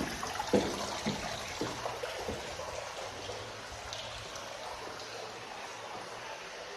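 Footsteps on a bare floor of a house under construction, a step about every half second for the first couple of seconds and then stopping, over a steady hiss.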